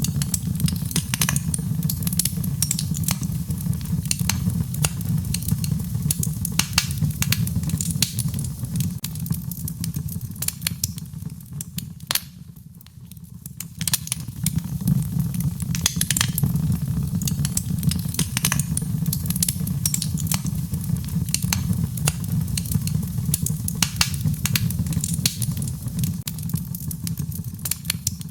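Wood fire in a fireplace crackling: irregular sharp pops and snaps over a steady low rumble of the flames. Both ease off for a couple of seconds about halfway through.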